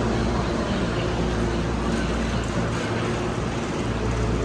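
Hankyu electric train running, a steady rumble with a low hum.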